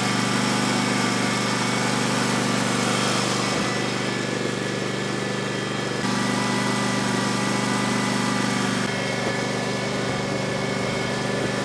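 Riding lawn tractor's engine running steadily, its pitch and loudness dipping slightly a couple of times.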